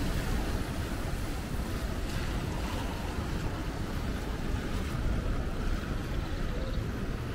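Steady city traffic noise on a rain-wet street: a low rumble of cars with tyres hissing on the wet pavement.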